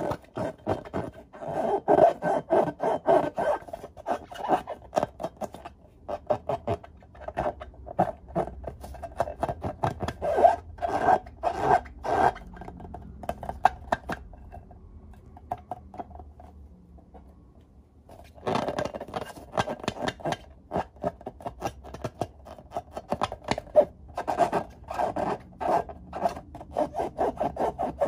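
Hands squeezing and rubbing filled latex balloons: a rapid, irregular run of rubbery rubbing strokes that fades for a few seconds around the middle, then picks up again.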